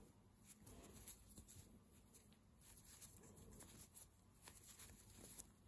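Near silence with faint scratchy rustling and soft ticks of a metal crochet hook drawing yarn through single crochet stitches.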